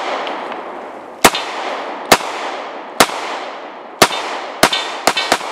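Semi-automatic pistol fired in a string of seven shots, about one a second at first and coming faster near the end, each shot ringing out in a long echo.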